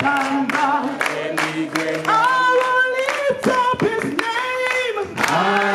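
A group singing unaccompanied, with rhythmic hand-clapping about twice a second.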